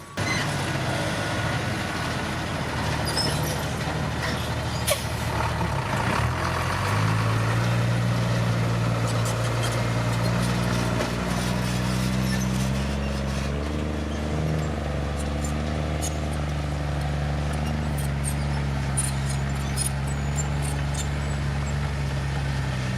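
Heavy diesel engine of a road-construction machine running under load, its pitch stepping up and down several times as the revs change.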